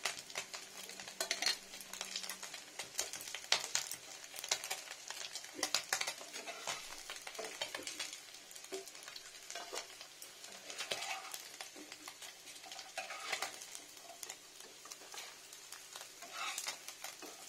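Small whole fish sizzling as they fry in oil in a frying pan, with a spatula repeatedly scraping and knocking against the pan as the crisp-fried fish are turned and lifted out.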